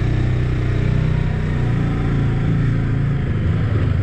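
Motorcycle engine running steadily at low revs as the bike rolls slowly over a stone-paved lane, heard from the rider's seat.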